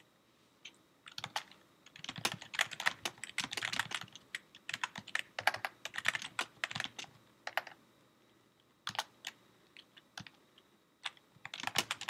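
Typing on a computer keyboard: runs of quick key clicks broken by short pauses, with a quiet gap of about a second past the halfway point.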